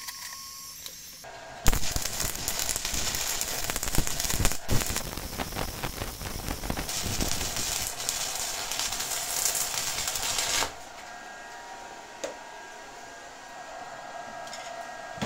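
Stick-welding arc from a handheld mini MMA welder burning a 3.2 mm electrode on a fillet weld in steel plate: a dense crackling hiss that starts about a second and a half in and stops after about nine seconds, leaving a faint steady hum.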